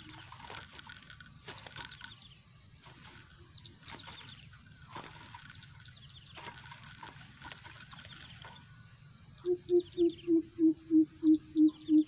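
Greater coucal giving its deep hooting call, a rapid, evenly spaced run of about three hoots a second that starts about nine and a half seconds in. Before it there are only faint high chirps and light clicks.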